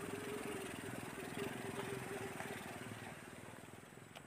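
A small engine running steadily, growing fainter near the end.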